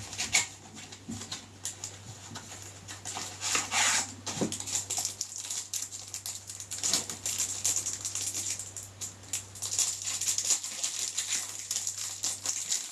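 Plastic packaging rustling and crinkling, with irregular small clicks and taps, as a pen case is unwrapped and handled by hand.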